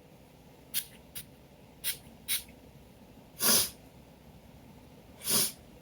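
A man sniffing and taking sharp, hitching breaths: four quick sniffs, then two longer gasping in-breaths about two seconds apart. It is the build-up of an allergy sneeze that has not yet come.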